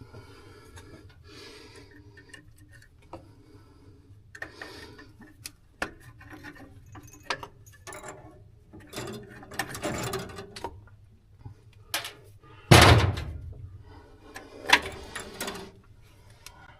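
Hand tools working on a truck's carburetor mounting: scattered metal clicks and clinks of tools on bolts and fittings. A heavy thump comes about three-quarters of the way through, and a sharp knock follows shortly after.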